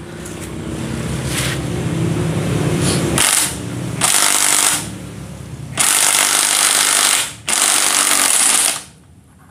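Cordless impact wrench driving a freewheel removal tool to unscrew a threaded bicycle freewheel. The motor runs for about three seconds, then hammers in four loud bursts and stops near the end.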